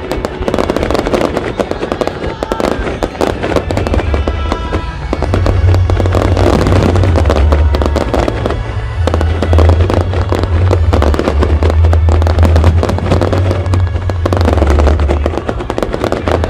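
Fireworks display: aerial shells bursting and crackling in quick succession. A heavy low rumble sets in about five seconds in and carries on, with music playing underneath.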